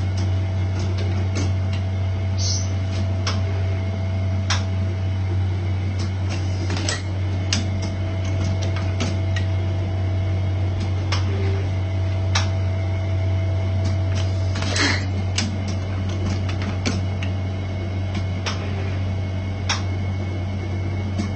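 Automatic jewelry wax injection machine and its mold conveyor running: a steady low hum with frequent sharp clicks and a few short hisses, the loudest hiss about fifteen seconds in.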